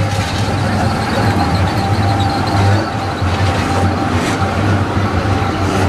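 Zurich tram passing close by at low speed, with a steady low hum and a faint steady whine over its rolling on the rails.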